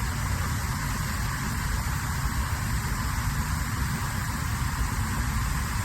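Floodwater pouring over a dam overflow, a steady rushing noise with a heavy low rumble and no change in level.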